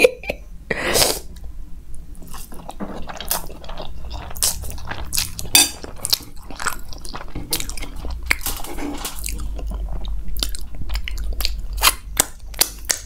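Close-miked mouth sounds of someone eating noodles and macaroni: sucking in noodle strands, then chewing, with many short wet smacks and clicks.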